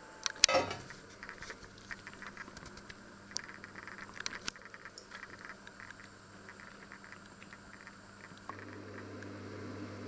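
Food cooking on a stovetop: a sharp clatter about half a second in, then many small irregular crackles and pops. A steady low hum starts near the end.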